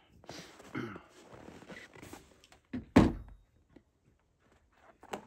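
Handling noise as a portable antenna is unscrewed from its tripod mount and carried off, then one loud thunk about three seconds in as it is set down in a pickup's bed. A short click near the end.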